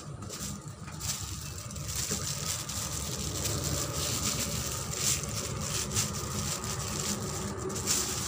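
Clear plastic sleeves on fishing rod sections crinkling and rustling as they are handled, in a run of irregular crackles. A steady low rumble sits underneath.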